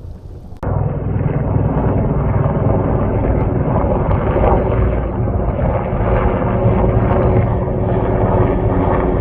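Helicopter flying close by, a loud steady drone that cuts in suddenly about half a second in.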